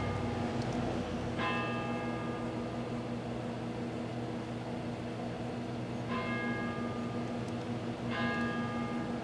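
1987 GE microwave oven running with a steady low hum while heating a melon. Ringing bell-like tones come in three times over it and fade slowly.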